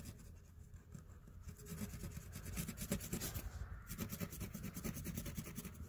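Felt-tip marker scrubbing on a canvas tote bag: quick back-and-forth coloring strokes, several a second, scratching on the fabric weave.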